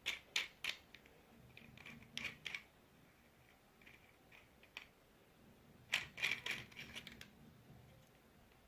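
Small tools from a watch repair kit being handled, giving short clusters of sharp clicks and clinks: a few at the start, a group about two seconds in, and a denser burst around six to seven seconds in.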